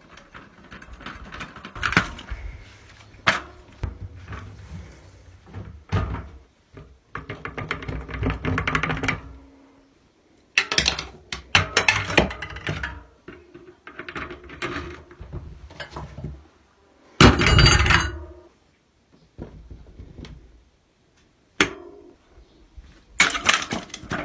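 Irregular metallic clanks, clinks and knocks of hands and tools working on a bicycle's rear axle, with several clattering stretches of a second or two and a loud clatter about two-thirds of the way through.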